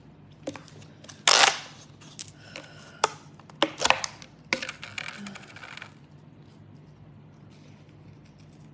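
Clear plastic food container being handled and its lid opened: a run of sharp plastic clicks and crackles, the loudest about a second and a half in, dying away about six seconds in.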